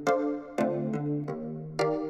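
Instrumental intro of an electronic pop song: a few sharp-attack synthesizer keyboard notes ringing over sustained chords, played through headphones and picked up by microphones.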